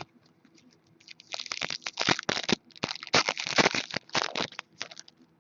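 Crinkling and crackling of a trading-card pack wrapper being handled, a quick irregular run of crackles starting about a second in and stopping shortly before the end.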